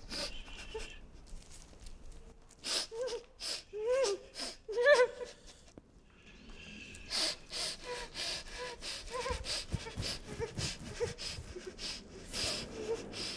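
A woman gagged with tape whimpering and breathing sharply through her nose, with a few short muffled cries that rise and fall in pitch about four to five seconds in.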